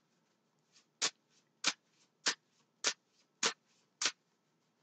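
A deck of tarot cards being shuffled by hand: six short, crisp slaps of cards in a steady rhythm, about one every 0.6 seconds, with fainter rustles between.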